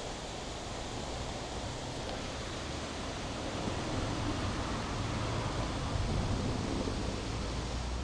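A mountain stream rushing steadily over rocks and rapids, an even roar of water.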